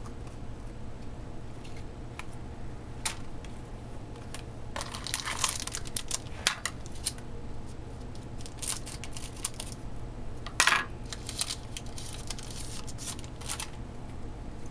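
Trading cards being handled and flipped through by hand: scattered short clicks and brief crinkling rustles, the loudest a little past halfway, over a steady low hum.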